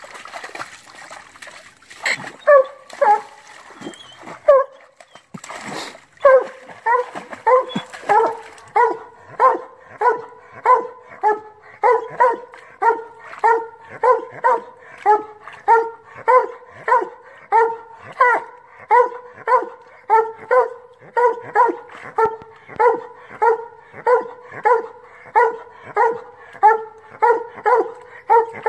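Black and tan coonhound barking treed at a tree: short barks, irregular at first, settling about six seconds in into a steady chop of nearly two barks a second. This is the tree bark that signals the hound has its quarry up the tree.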